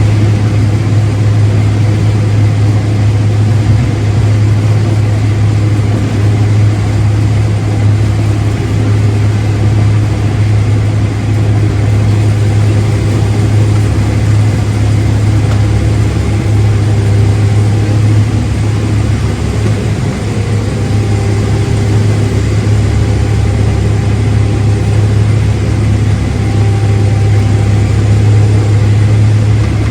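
Engine of a large farm machine running steadily with a constant low hum.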